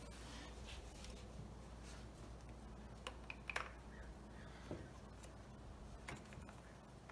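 Faint clicking and rubbing as hands fit a small plastic part on a motorcycle's engine side, with a few sharper clicks about three to four seconds in, over a steady low hum.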